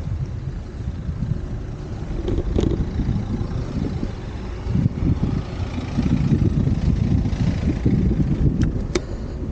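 Wind buffeting the microphone of an Insta360 One X2 camera on a moving bicycle, a steady low rumble, with a few sharp clicks, two of them near the end.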